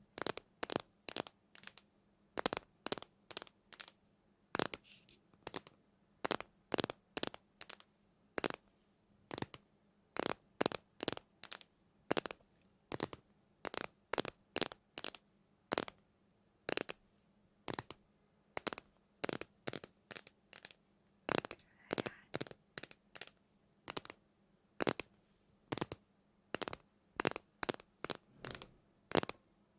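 An irregular series of short, sharp taps or crackles, about two to three a second, with quiet between them.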